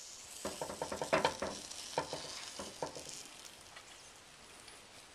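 Egg-battered raisin-bread French toast sizzling in a Copper Chef square pan, a steady high hiss. A slotted spatula clicks and scrapes lightly against the pan several times in the first three seconds, then the sizzle carries on alone, a little quieter.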